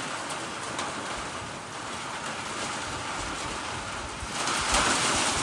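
Steady heavy rain of a desert monsoon storm, with wind. About four seconds in, a gust picks up and buffets the microphone.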